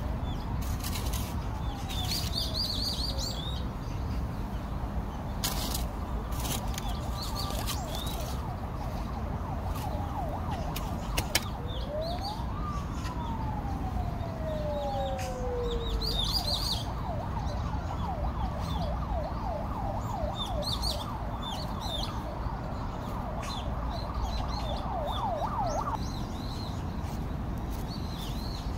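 A distant siren that slowly rises and falls, then switches about halfway through to a fast repeating warble for around ten seconds before stopping. Small birds chirp now and then.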